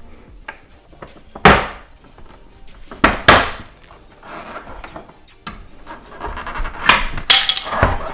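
Plastic bumper trim being pried loose with a plastic pry tool: a run of sharp plastic snaps and clicks as the retaining clips let go, about half a dozen in all, with quieter scraping between them.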